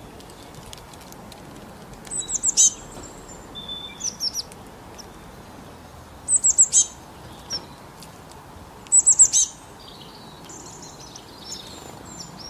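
A small songbird singing a short, high phrase of four or five quick notes, three times about four seconds apart, with fainter chirps in between.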